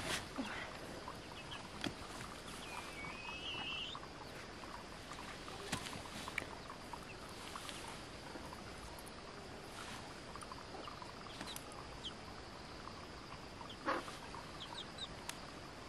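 Faint outdoor ambience with scattered light clicks and knocks, a single short rising bird call about two and a half seconds in, and a sharper knock near the end.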